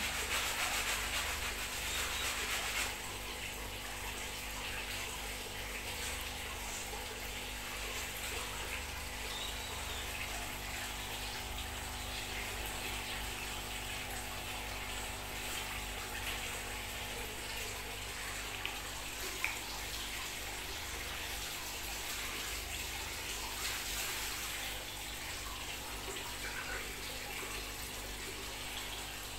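Steady rush of running water, a little louder in the first three seconds.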